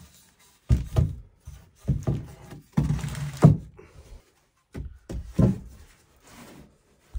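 Long wooden boards knocking as they are handled and set down on a plywood-type subfloor: a series of dull thuds and knocks, the loudest about three and a half seconds in.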